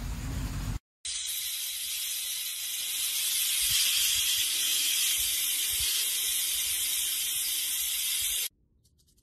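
Rattlesnake shaking its rattle: a steady, high, hissing buzz that starts about a second in and stops abruptly near the end.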